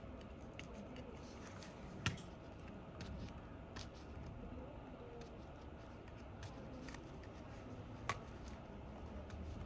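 Faint scattered clicks and handling noise of small parts and tools during a phone repair, with two sharper ticks about two seconds in and near the end.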